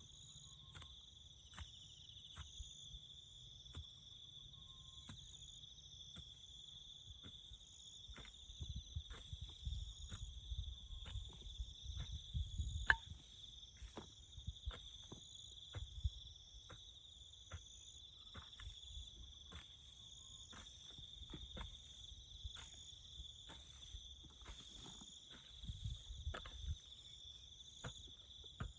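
Crickets chirping in a steady high-pitched chorus, with a second insect pulsing even higher. Short clicks or knocks keep cutting in, about one or two a second, and low rumbling swells from about a third of the way in and again near the end.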